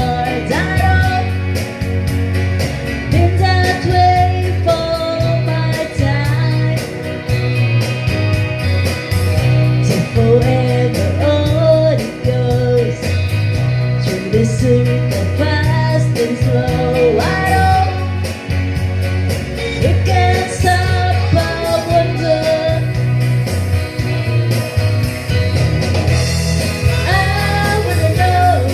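A rock song with a sung lead vocal over guitar and a steady, repeating bass line.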